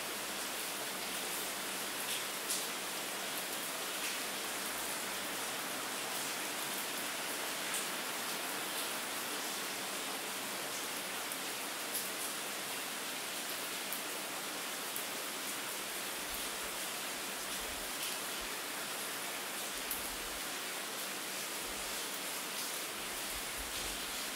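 Steady rain falling: an even hiss with occasional sharper drop ticks.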